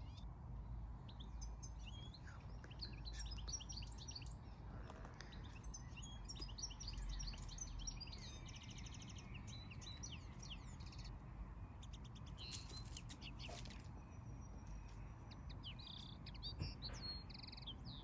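Wild songbirds chirping and singing in short, overlapping phrases, with a few rapid trills in the middle, over a steady low rumble.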